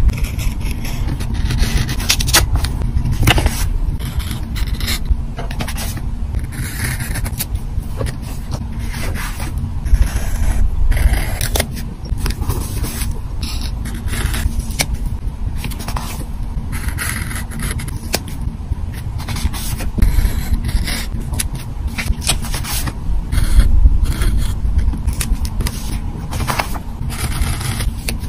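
Craft knife tip scraping along a paper sticker sheet as stickers are lifted off and peeled, in a run of short scratchy strokes and light taps, with paper rustling and a steady low rumble underneath.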